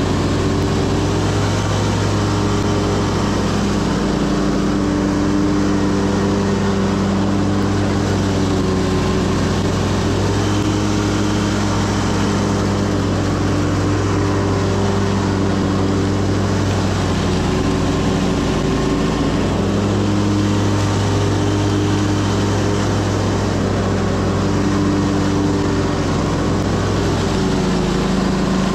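Commercial lawn mower's engine running steadily while mowing, heard close up from a mount on the machine, its pitch wavering slightly.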